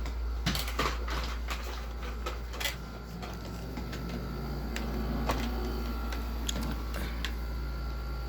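Scattered plastic clicks and knocks as the Hoover upright vacuum's dustbin is handled, over a steady low hum.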